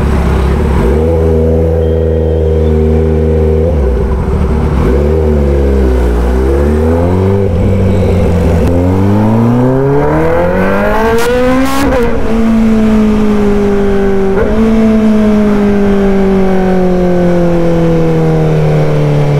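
Kawasaki ZX-10R inline-four through an SC-Project aftermarket exhaust, ridden. The engine note holds steady, then climbs in pitch for several seconds, drops suddenly about twelve seconds in, and falls slowly after that as the revs come down.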